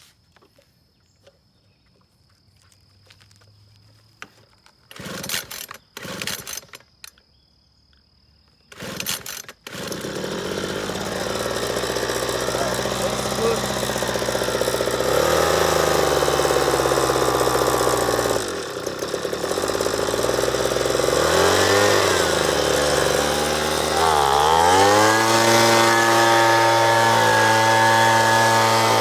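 Two-stroke leaf blower pull-started: three pulls, catching on the third, then running and revved up and down several times before being held at high speed.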